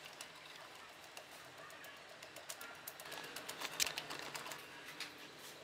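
Faint crackling and clicking of a plastic packet being handled as powder is tipped from it into a glass blender jar, busiest in the second half.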